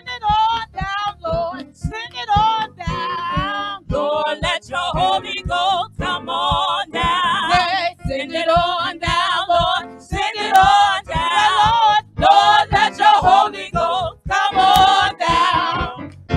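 Gospel praise singers over backing music with a steady beat, a woman's voice leading and other voices joining in.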